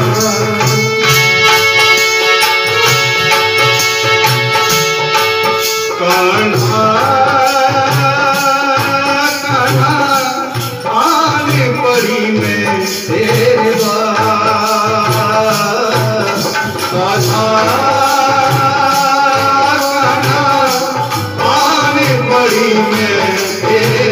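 Hindi bhajan music: a naal hand drum keeps a steady beat of about two strokes a second under a melody line. For the first few seconds a chord is held steady, then the melody wavers up and down.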